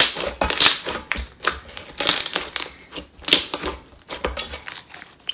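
Thick, glossy slime with green marshmallow foam beads being squeezed and stretched by hand. It gives an irregular run of squishes and bubble pops, about two a second.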